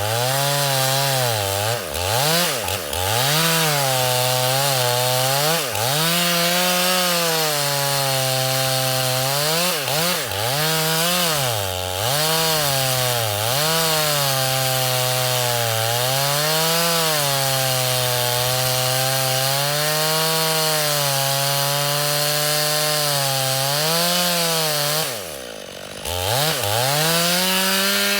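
Gasoline chainsaw at high revs cutting through a thick log, its engine pitch repeatedly sagging and recovering as the chain bites into the wood. About 25 seconds in the engine drops briefly toward idle, then revs back up.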